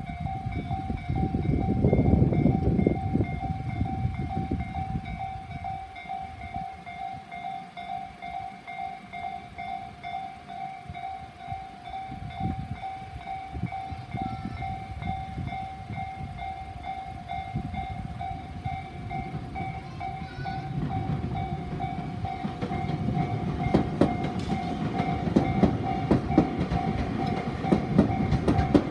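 A level-crossing warning bell rings its steady repeated ding over Tobu Nikko Line trains passing the crossing. The train rumble is strongest a couple of seconds in, eases off, then builds again in the second half, with sharp wheel clacks near the end.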